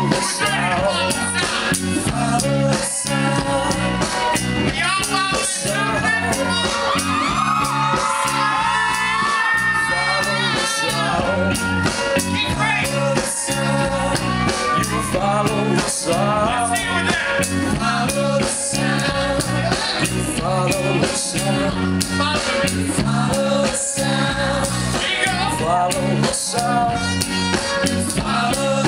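Live rock band playing a song with singing, electric guitar, bass guitar and a drum kit, recorded from the audience.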